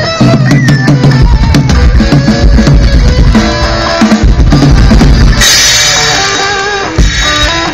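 Rock band playing amplified through an outdoor stage PA during a sound check: drum kit with kick and snare, bass and electric guitar. About five seconds in the drum beat stops, giving way to a bright ringing wash over held notes.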